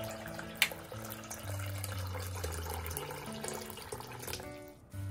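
Tap water running in a stream into a glass bowl of shiso leaves, with background music playing steady notes. A sharp click sounds about half a second in, and the running water stops near the end.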